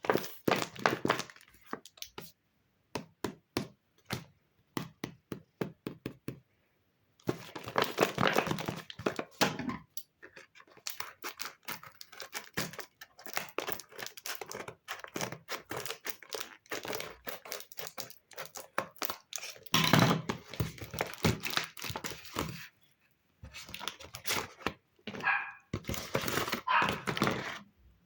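Paper and stationery handled close to the microphone: irregular crinkling, tearing and tapping. There is a short squeak near the end.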